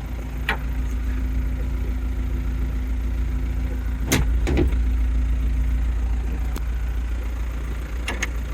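Toyota Land Cruiser BJ40's four-cylinder diesel engine idling steadily, with a few sharp knocks and clicks over it, the loudest about four seconds in.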